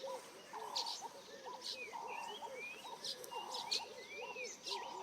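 Many birds calling at once, a steady chorus of short, repeated chirping calls overlapping one another.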